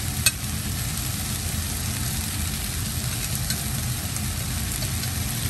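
Chow mein frying in a pan on a gas stove: a faint sizzle over a steady low rumble, with a single sharp click just after the start.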